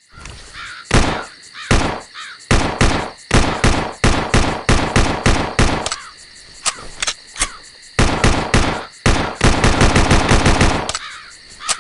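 Glock pistol firing: single shots and quick strings of shots, then a long rapid burst of about a second and a half near the end. Crows cawing in the background between shots.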